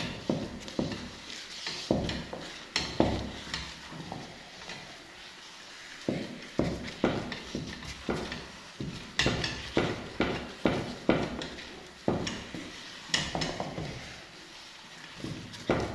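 Wooden cooking stick (mwiko) beating and turning stiff ugali in a stainless steel saucepan: runs of quick knocks and scrapes against the pan, about two to three a second, with short pauses. This is the stage of working the ugali until it reaches the right consistency.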